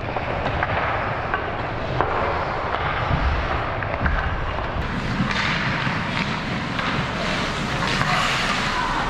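Ice hockey play on a rink: skates scraping the ice and sticks and puck clacking, with scattered sharp knocks over a steady rink noise.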